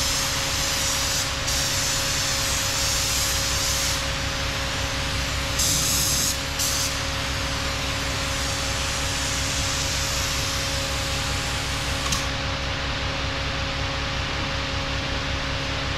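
Compressed-air paint spray gun hissing in spells as the trigger is pulled and released, several bursts in the first seven seconds, then fading out after about twelve seconds. A steady mechanical hum with a low drone runs underneath.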